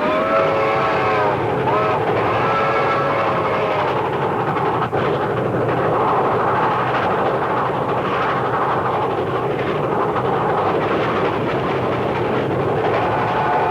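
Train running on the rails: a loud, steady rumble and clatter. In the first few seconds, pitched tones bend up and down over it.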